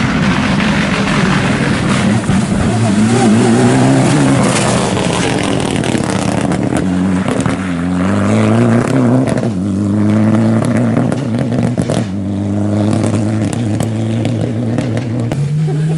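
Mitsubishi Lancer Evolution X rally car's turbocharged four-cylinder engine accelerating hard through the gears, pitch climbing and dropping at each shift, with a few sharp crackles in the middle. The engine note settles lower and steadier as the car pulls away.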